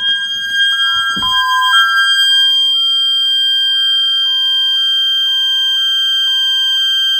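Home security system alarm sounding through its wall-mounted siren: a steady piercing high tone, joined about two seconds in by a lower two-note hi-lo tone switching notes about every half second.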